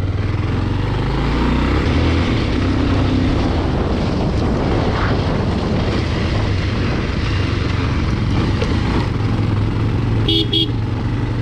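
Motorcycle engine running steadily while riding, with two short horn beeps near the end.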